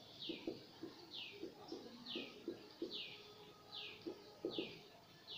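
A bird calling: a short falling chirp repeated evenly about once a second. Faint scratchy strokes of a marker on the whiteboard sound between the calls.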